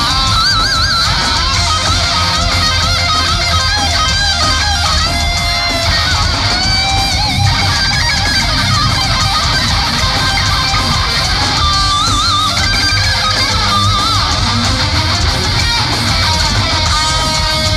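Thrash metal band playing live, loud and dense: distorted electric guitars, bass and drums, with a lead guitar holding wavering notes with vibrato.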